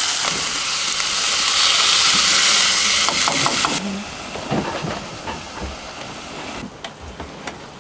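Food sizzling in a frying pan, a loud steady sizzle that drops off sharply about four seconds in, then carries on quieter with a few clicks and knocks.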